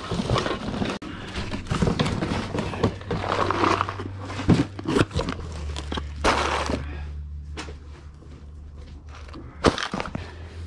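Things being handled and moved about in boxes: a run of knocks, thuds and rustling. A low steady hum comes in about five seconds in, and a couple of sharp knocks land near the end.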